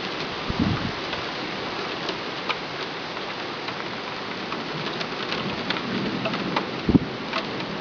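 Rain falling steadily, an even hiss with many sharp ticks of drops striking hard surfaces; two short low thumps, one about half a second in and one near the end.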